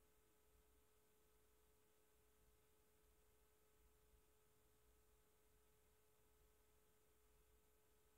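Near silence: room tone with a very faint steady hum.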